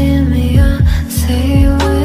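Background music with a steady beat: sustained chords over a deep kick drum that drops in pitch on each beat, about two beats a second.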